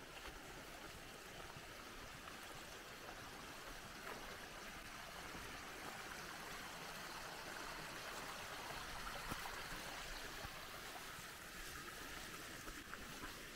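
Small mountain stream trickling over rocks, swelling in the middle and fading near the end, with a few faint footsteps on the leaf-covered path.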